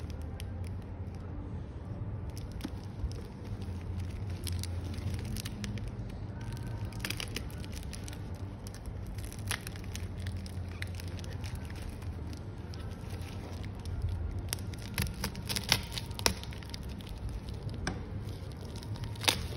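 Plastic courier mailer bag being handled and crinkled, a continuous rustle broken by many small crackles and a few sharp clicks, the loudest around sixteen seconds in and just before the end.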